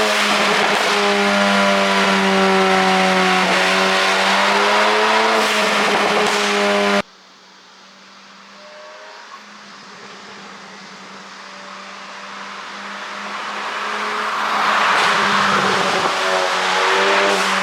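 Engine of a tuned Volkswagen Golf Mk7 GTI running at high revs with its pitch rising and falling. About seven seconds in it cuts off abruptly, then swells back up to full loudness over several seconds.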